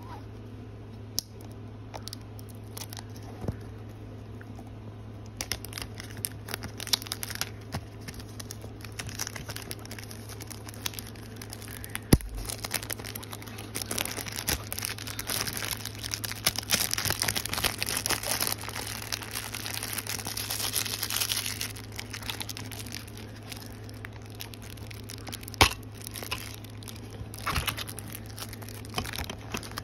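Plastic shrink wrap being torn and peeled off a DVD case, crinkling and crackling, busiest in the middle, with a few sharp clicks. A steady low hum runs underneath.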